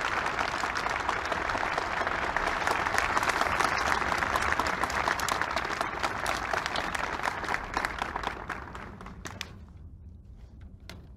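Crowd applauding: a dense patter of many hands clapping that thins to a few scattered claps and dies away about nine to ten seconds in.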